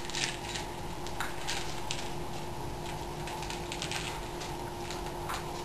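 Faint crinkles and light taps of adhesive tape being wrapped over the hole in a small plastic container, over a steady low hum.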